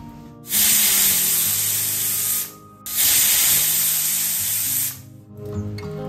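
Aluminium stovetop pressure cooker letting off steam through its weight valve: a loud steady hiss in two bursts of about two seconds each, with a short break between them. It is whistling at full pressure while the pork cooks.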